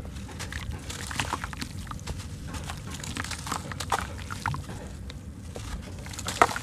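A wet, soft sand-cement lump crunching and crumbling in bare hands, with an irregular run of gritty crackles and wet squishes as bits fall and splash into water. The sharpest crack comes near the end.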